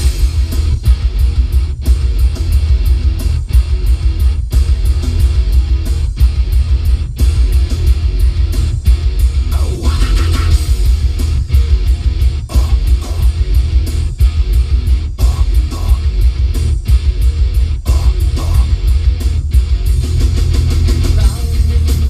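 Guitar rock music played loud through a car stereo inside the cabin, dominated by deep bass from a Rockford Fosgate T1S1-12 12-inch subwoofer. The sound dips briefly about once a second.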